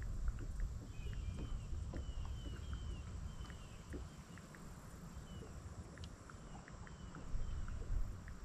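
Low, steady wind-and-water rumble around a fishing boat, with faint scattered ticks and a series of short, high, falling chirps in the first half.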